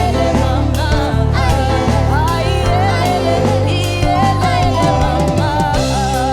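Live afro-soul band playing, with a sung melody over sustained bass notes and steady drum strikes.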